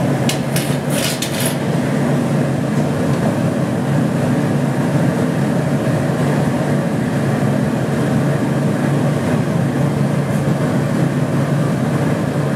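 Steady roar of a gas-fired glory hole, the glassblowing reheating furnace, with its burner and blower running while the glass on the blowpipe is reheated. A few sharp metallic clinks come in the first second and a half.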